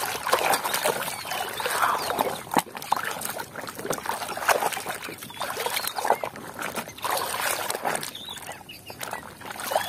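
Muddy water sloshing and splashing in a plastic tub as a toy truck is scrubbed by hand and swished through it, with many irregular small splashes and clicks.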